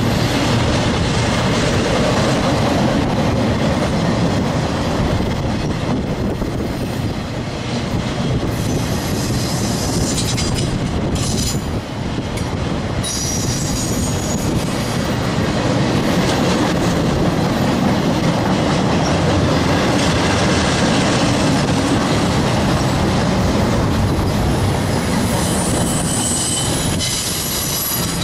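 Freight train of flatcars carrying wind turbine blades rolling past: a steady loud rumble and clatter of steel wheels on the rails. High-pitched wheel squeal comes in around nine to thirteen seconds in and again near the end.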